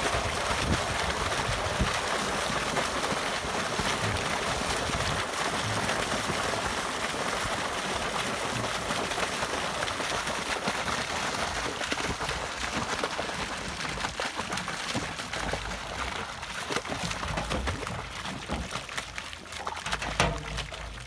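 Water and stocked trout gushing out of a large discharge pipe and splashing into a pond in a steady rush. The flow weakens over the last several seconds and dwindles to a thin trickle near the end.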